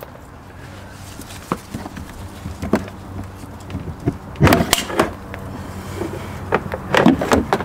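Plastic clacks and knocks as a blue hookup plug is worked out of the caravan's mains inlet socket, disconnecting the mains charger. A few light clicks come first, then a loud cluster of clacks about halfway through and another near the end.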